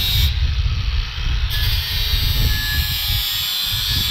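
Earthquake XT 20V brushless 4.5-inch angle grinder running steadily with its disc pressed against the face of a rusty cast-iron brake rotor, grinding off the rust, with a steady motor whine.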